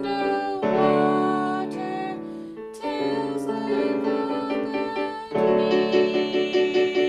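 Several digital pianos playing together: a simple melody over sustained chords, with fresh chords struck every two or three seconds and quicker notes near the end.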